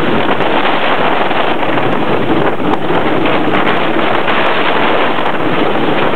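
Intamin wooden roller coaster train running at speed, heard on board: loud, steady wind rushing over the microphone, with the rumble and faint clatter of the train on its wooden track.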